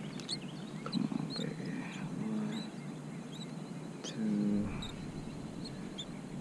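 Small birds chirping, with short high chirps scattered throughout over a steady low background noise. Two brief low hums come through, one about two and a half seconds in and a louder one about four seconds in.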